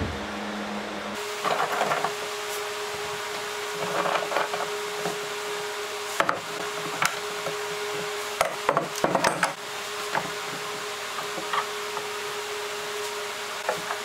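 Pipe clamps being set and tightened across a glued-up wooden panel: irregular knocks and clacks of the clamps' pipes and jaws against the wood, a cluster of them near the middle, over a steady hum that starts about a second in.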